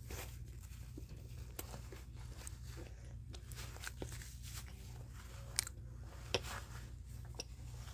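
A child chewing food close to the microphone, with small wet clicking mouth sounds and two sharper clicks about a second apart past the middle, over a steady low hum.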